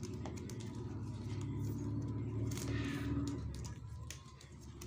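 A low steady hum that swells and then fades shortly before the end, with faint ticks and rubbing from plastic craft wire being pulled and knotted by hand.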